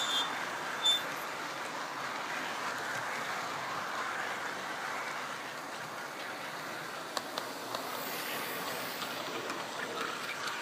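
Model trains running on OO gauge track: a steady whirr and rattle of wagon wheels and locomotive motors as a container train passes close by. Two short high squeaks in the first second, and a few sharp clicks from wheels crossing rail joints or points a little past halfway.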